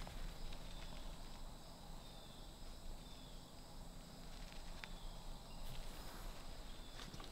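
Insects droning steadily in a high, thin, even ring, with a few faint ticks and rustles.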